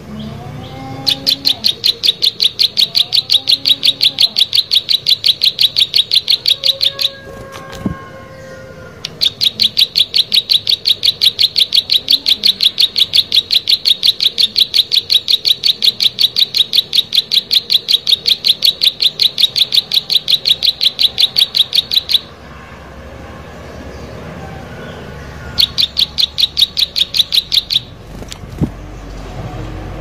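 Plain prinia (prenjak sawah) singing: long runs of a rapid, evenly repeated high note, about ten a second, in three bouts: one of about six seconds, a long one of about thirteen seconds, and a short one near the end.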